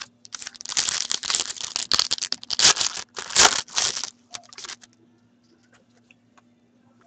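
Foil wrapper of a hockey card pack being torn open and crinkled by hand: a few seconds of dense crackling and tearing, loudest near the middle, then it stops and goes quiet.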